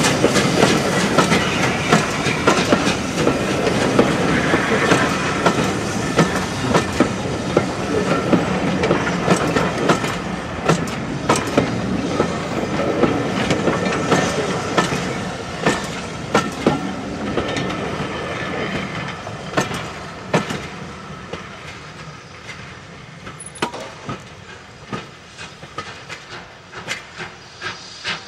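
Steam-hauled train of passenger coaches rolling past, the wheels clicking regularly over the rail joints. The rumble fades steadily as the train draws away, leaving the clicks of the last coaches.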